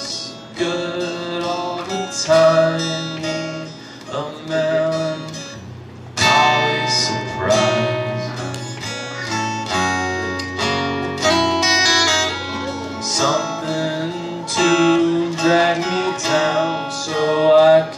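Acoustic guitar played live, chords struck again and again in a steady rhythm, with the chords changing every second or two.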